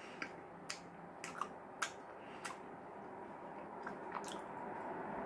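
A person chewing a mouthful of sandwich with closed lips, giving irregular wet clicks from the mouth, about eight in all.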